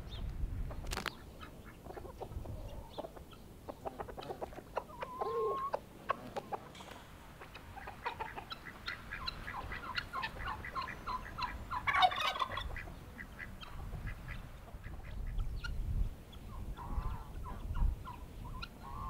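A flock of chickens clucking and calling while they feed, with short clucks throughout and one louder squawk about twelve seconds in.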